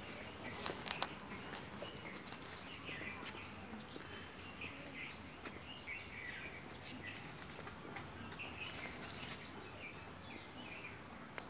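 Small birds chirping: many short, high chirps scattered throughout, busiest about seven to eight seconds in. A couple of sharp clicks about a second in.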